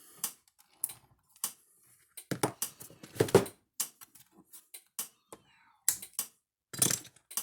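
Irregular clicks and taps, with a couple of heavier clunks about two to three seconds in and again near the end: objects being handled on a workbench.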